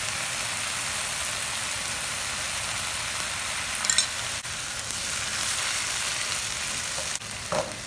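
Collard greens sizzling steadily as they stir-fry in hot oil in a pan, with a single sharp click about halfway through.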